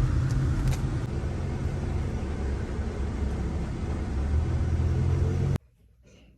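Steady low rumble of a car driving. It cuts off abruptly near the end, leaving only faint quiet background sound.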